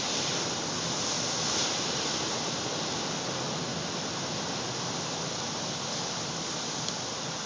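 Rough surf in the wake of a nor'easter breaking and washing in continuously: a steady wash of noise, a little louder in the first two seconds.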